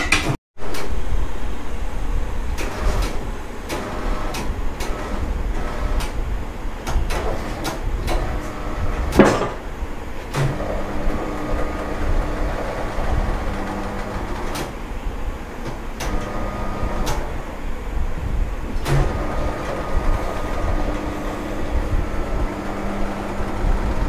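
Tyre changer at work on a tyre and alloy wheel: sharp clicks and knocks of metal on metal, the loudest about nine seconds in, then the machine's motor humming steadily in two long spells, starting about ten and about nineteen seconds in.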